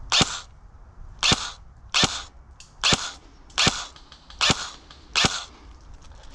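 Airsoft rifle firing seven single shots in semi-automatic, one roughly every three-quarters of a second, each a sharp crack with a short tail.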